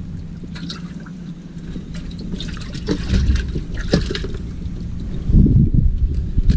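Water splashing and sloshing in a bass boat's livewell as largemouth bass are grabbed and lifted out, the fish thrashing in the water; the splashes come thickest about two to four seconds in. A low rumble of handling or wind on the microphone follows near the end.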